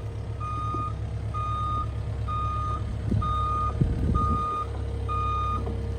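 Excavator's travel alarm beeping steadily, about once a second, over the low running of its engine as the machine tracks along. A few low knocks and rumbles come between about three and four and a half seconds in.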